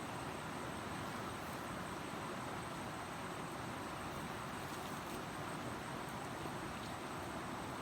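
Steady, even rushing background noise outdoors, with no distinct events.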